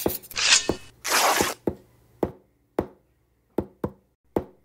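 A string of about nine sharp knocks at uneven spacing, with two short bursts of hiss in the first second and a half.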